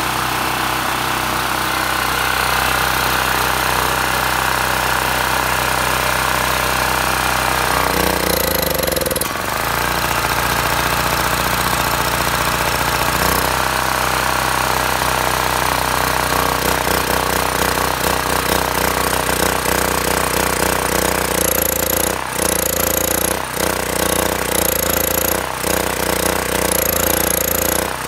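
Predator 4000 generator's 212cc single-cylinder engine running on choke. About eight seconds in it bogs and drops in pitch, then recovers, and near the end it stumbles several times. It runs only on choke and falters when the choke is opened, the sign of a clogged carburetor.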